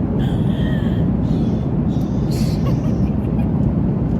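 Steady low rumble of an airliner cabin in flight: jet engine and airflow noise, even throughout.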